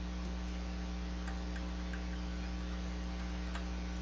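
Steady electrical mains hum, with a few faint light clicks scattered through it from a screwdriver and small screws being taken out of a disk drive's circuit board.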